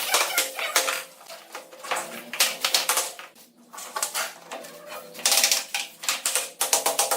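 Rapid clattering and tapping of hard pieces knocking together, in quick runs of sharp clicks with short pauses, some knocks leaving a brief ringing tone.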